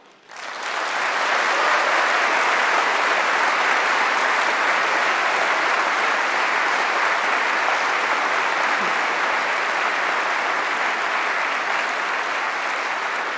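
Large audience in a big hall applauding, a dense steady clapping that builds up within the first second and eases off slightly near the end.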